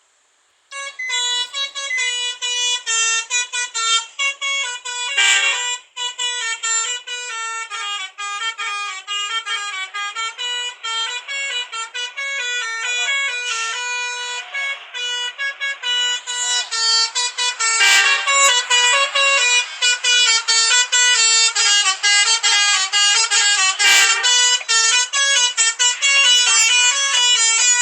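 Indonesian bus 'telolet basuri' multi-tone musical horn playing a tune, its notes stepping up and down in quick blasts almost without pause. The horn starts about a second in, and a few sharp clicks cut through it.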